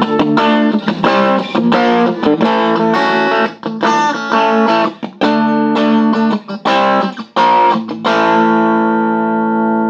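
Strat-type electric guitar played through a 1971 Watkins Clubman amplifier, driven by a single EL84 valve in Class A, on the in-between pickup setting with the treble up, giving a bright, ear-piercing tone. It plays a run of strummed chords with short breaks between them, and lets the last chord ring for about two seconds near the end.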